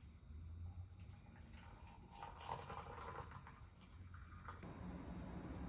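Quiet room with faint rustling and light clicks, mostly a couple of seconds in.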